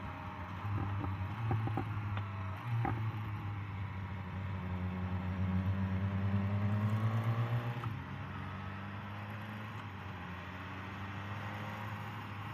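Motorcycle engine running under a rider's helmet with wind noise. About halfway through the revs climb steadily for a few seconds, then drop back abruptly as the throttle is eased, and the engine runs on steadily.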